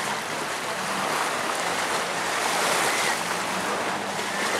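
A steady rushing wash of open-air noise, with the faint drone of a distant aerobatic propeller plane's engine underneath.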